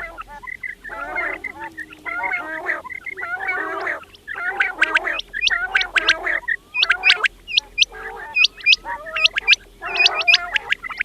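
Quails calling, several birds together: bursts of low chattering notes throughout. From about four seconds in, sharp, quickly rising whistled notes come in short groups of two or three.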